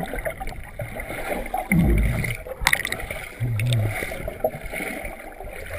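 Muffled underwater sloshing and bubbling heard through a GoPro's waterproof housing, with a couple of short low gurgles and a sharp click about two and a half seconds in.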